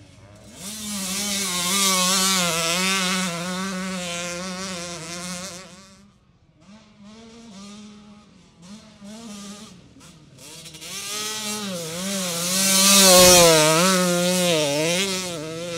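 Single-cylinder two-stroke engine of a 2002 Kawasaki KX125 dirt bike being ridden hard, its pitch rising and falling as the throttle is worked through turns. It passes loud, fades in the middle, then comes loud again, loudest about thirteen seconds in.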